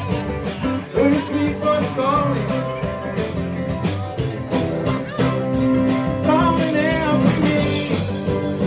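Live band playing electric and acoustic guitars over a steady beat.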